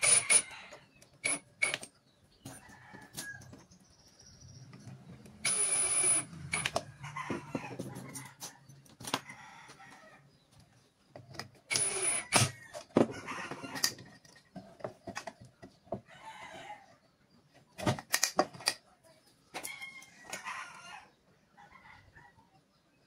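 Cordless brushless driver running in short bursts, each about a second or less, as it drives screws through a steel hinge into pine. Birds call in the background.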